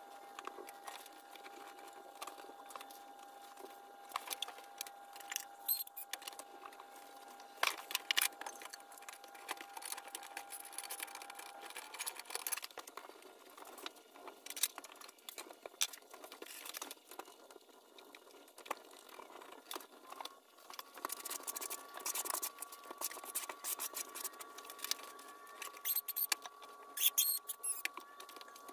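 Tile-setting work noises: scattered clicks, taps and scrapes as large ceramic wall tiles and plastic leveling spacers are handled and pressed into place, getting busier near the end as thinset is troweled onto the wall. A faint steady tone runs underneath and steps up in pitch twice.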